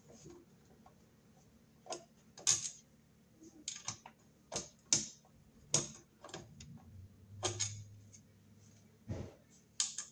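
Irregular metallic clicks and short scrapes of a hand screwdriver turning screws and of a metal breaker-panel cover being handled, the loudest about two and a half and five seconds in.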